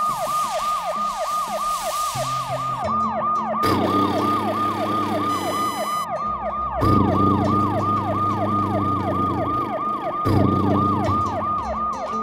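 Siren sound effect: a fast yelp, its pitch sweeping down over and over about three to four times a second, with low sustained tones underneath.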